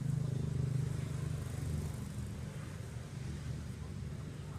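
Engine of a motor vehicle running nearby, a steady low hum that is loudest in the first second or two and then slowly fades as it passes.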